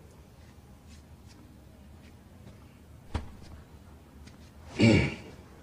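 Mostly quiet room tone, broken by a single sharp knock about three seconds in and a brief man's voice near the end.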